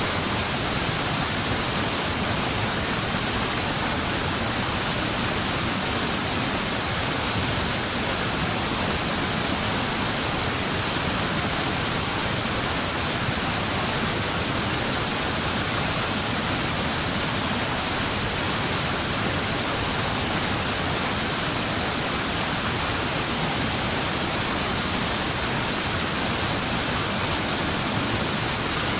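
Waterfall: falling water rushing in a steady, even hiss that never changes.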